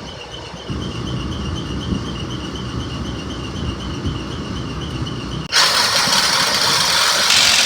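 Shop fan running with a steady, wavering squeak over a low rumble. About five and a half seconds in, a much louder hiss-like noise starts suddenly and carries on.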